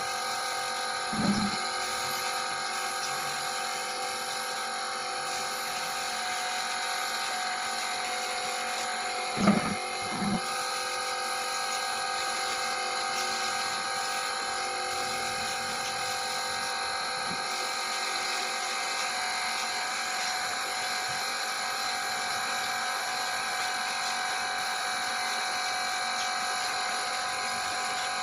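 Spray-gun rig running steadily with a constant whine, spraying wood finish onto a small wooden chair. Three short knocks cut through it, one about a second in and two close together near ten seconds.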